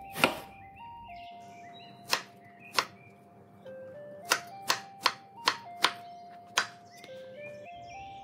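A chef's knife chopping through ridge gourd onto a wooden chopping board: nine sharp chops, three spread out early, then a quicker run of six a few seconds in. Background music with a simple stepping melody plays throughout.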